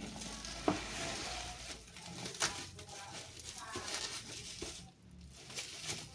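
Parcel packaging being handled: crinkling plastic and paper with a few sharp knocks, and faint voices in the background.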